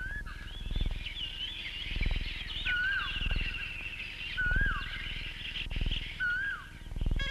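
Birds chirping and calling in woodland, with one bird repeating a short falling whistle three times and a fast trill in the middle. Soft low thuds come roughly once a second underneath.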